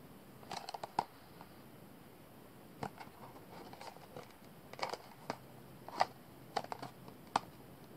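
Small cardboard box handled and turned over in the hands: faint, scattered taps and scrapes, a few at a time, with short quiet gaps between.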